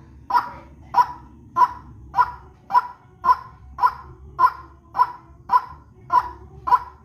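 White-breasted waterhen (ruak-ruak) calling: a harsh, honking note repeated evenly, a little under two a second, from a bird-luring recording.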